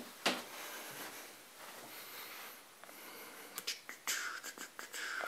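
Quiet room hiss with a single click near the start, then a run of scattered sharp clicks and light knocks over the last second and a half.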